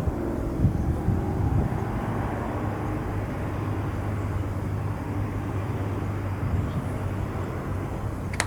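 Steady low rumble with a constant low hum.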